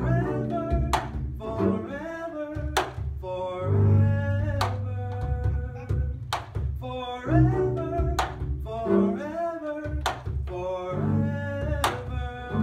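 Double bass playing an instrumental passage of a song, with gliding pitched notes over a low bass line and a sharp percussive knock about every two seconds.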